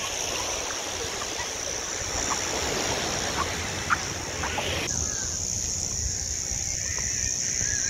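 Surf washing onto a sandy beach, with a steady high buzz of cicadas over it. About five seconds in, the surf noise drops away abruptly and the cicada buzz becomes louder.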